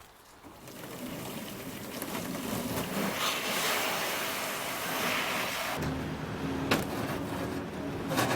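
Motor vehicle noise: a rushing sound swells and fades, then an engine runs low and steady from about six seconds in, with a sharp knock shortly after.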